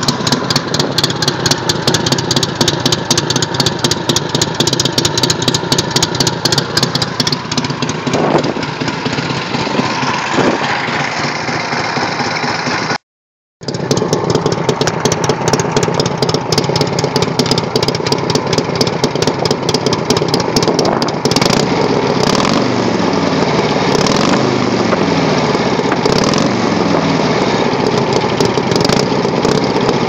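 Harley-Davidson Shovelhead 45-degree V-twin idling, heard close to its exhaust as a steady beat of firing pulses. The sound cuts out for about half a second near the middle.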